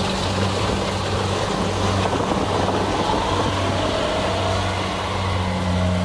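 Kubota DC70 Plus combine harvester running steadily while cutting rice: a constant engine and threshing drone.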